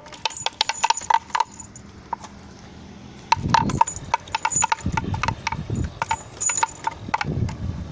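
Wind-driven bamboo whirligig with a pecking bird figure tapping its gong over and over at an uneven pace, each tap ringing on the same note. A low rumble comes in a few seconds in and swells and fades beneath the taps.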